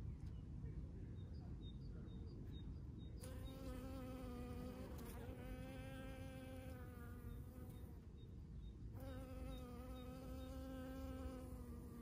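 A bee buzzing in flight close to the microphone as it moves among flowers. The buzz comes in two stretches, starting about three seconds in, breaking off briefly around eight seconds and resuming, its pitch wavering slightly.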